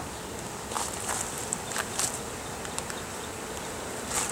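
Honeybees buzzing steadily over an opened hive, with a few short scrapes and clicks of a metal hive tool prying at frames glued down with propolis.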